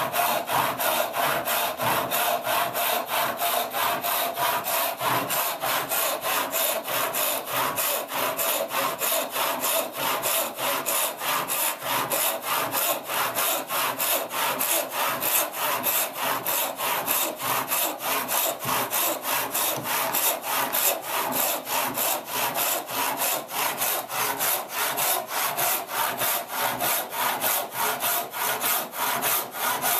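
Hand rip saw resawing a pine board held upright in a vise, cutting down through the board's thickness. The saw runs in quick, even rasping strokes, about two or three a second.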